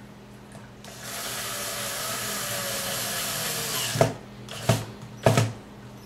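Cordless drill-driver running for about three seconds as it drives a screw into a metal LED heat sink, its pitch sinking slightly, then three sharp clicks a little over half a second apart.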